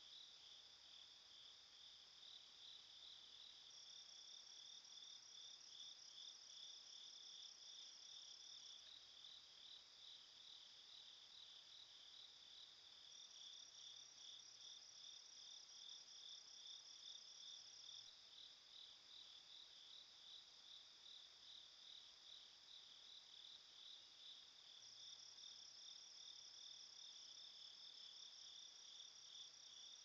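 Faint chorus of chirping insects. A high chirp pulses about three times a second throughout, and a higher, finer trill joins in three times for stretches of about five seconds each.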